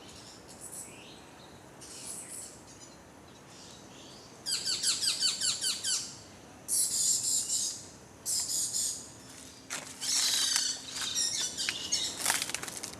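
Birds calling in several separate bursts of high, rapid chirps and trills, the busiest stretch coming near the end.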